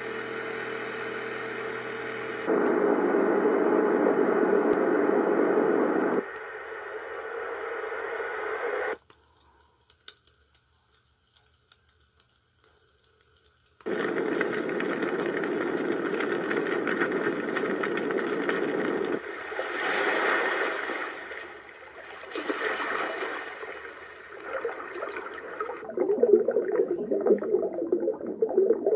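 Baby white-noise sound machine playing its built-in sounds in turn: a steady hiss that changes tone abruptly a few times, then a pause of about five seconds with a few faint clicks. After the pause the hiss returns, swells and fades in slow waves, and turns choppy and uneven near the end.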